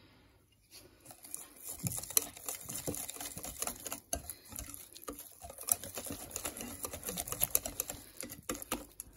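Whisk beating a thick batter of gram flour, vinegar and spices in a glass bowl: rapid clicking and tapping against the glass. It starts about a second and a half in and stops shortly before the end.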